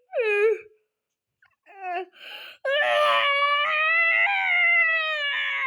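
A high-pitched voice giving a short cry, then a long drawn-out scream of about three seconds that rises slightly in pitch and falls away at the end.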